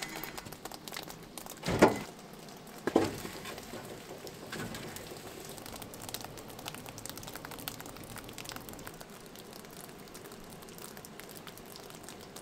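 Two heavy thuds about two and three seconds in, as split logs go into the cast-iron firebox of a wood-fired maple sap evaporator, then the steady crackle of the wood fire burning in the firebox.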